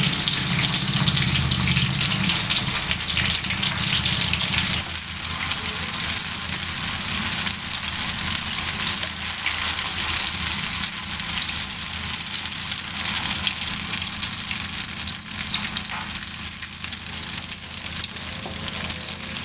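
Soya chunk balls deep-frying in hot oil: a steady, dense sizzle of bubbling oil.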